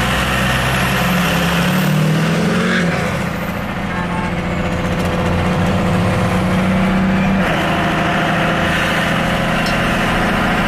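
Pickup truck engine running under way with road noise; the engine note shifts in pitch about three seconds in and again past seven seconds.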